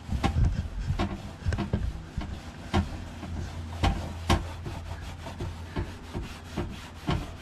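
An old rag wet with automatic transmission fluid rubbing back and forth over the plastic hood of a Husqvarna lawn tractor, a continuous scratchy wiping, with a few sharp knocks now and then, the loudest about three and four seconds in.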